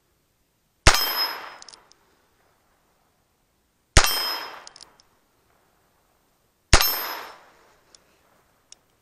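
Three shots from a Heritage Rough Rider .22 LR single-action revolver, about three seconds apart, each trailing off over about a second. A couple of faint clicks follow near the end.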